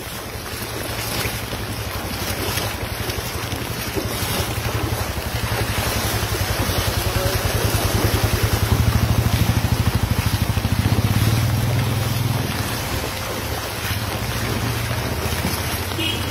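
Flooded street: floodwater rushing, with wind buffeting the microphone as a low rumble that swells in the middle and then eases.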